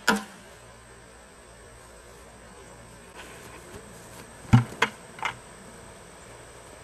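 Crickets chirping steadily in the background. About four and a half seconds in there is a heavy thud, then two lighter knocks, as a man drops a plastic bucket and falls onto the grass.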